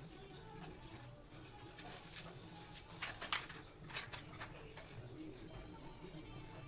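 Scattered light clicks and knocks of bike parts being handled as the rear wheel, now fitted with a new freewheel, goes back onto a mountain bike; the sharpest click comes a little past the middle.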